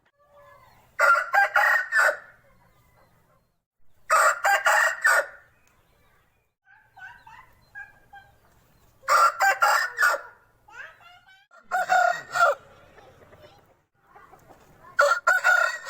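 Aseel roosters crowing: five short, loud crows about three seconds apart, with softer calls between.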